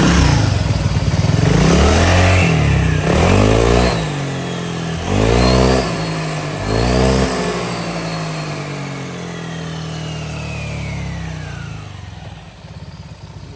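Honda SH150i scooter's single-cylinder engine revved in four quick throttle blips with the rear wheel spinning off the ground. Then a high whine from the final-drive gears slides steadily down in pitch as the wheel coasts down. The whine is put down to final-drive gears worn loose with long use.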